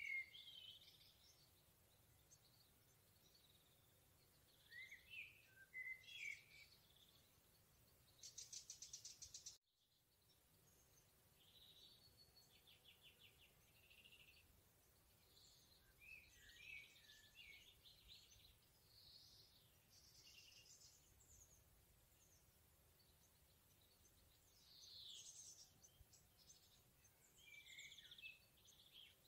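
Faint forest songbirds singing and calling: short high chirpy phrases from several birds throughout, with fast buzzy trills about eight and twelve seconds in.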